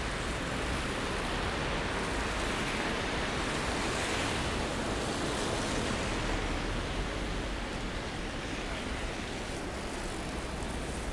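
Steady rumble and hiss heard inside the passenger cabin of a LiAZ-5292.22 city bus, with no single event standing out.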